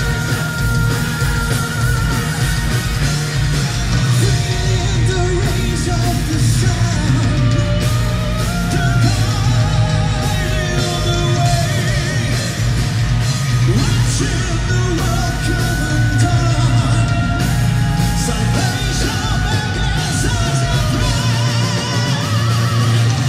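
Symphonic metal band playing live, heard from the audience: a woman singing, then a man singing, over guitars and drums.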